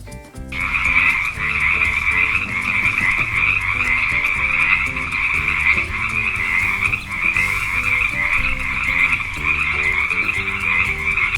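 Frogs calling: a dense, continuous trilling croak that starts about half a second in and carries on without a pause.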